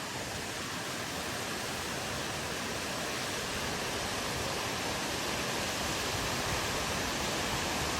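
White water rushing over rocks in a mountain stream, a steady, even roar.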